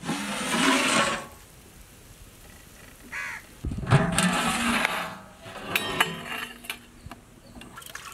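Large aluminium cooking-pot lids scraping and clanking against the pot rims as they are lifted off. There are two loud, harsh stretches, about a second long in the first second and again around four seconds in, followed by a few light metal clinks.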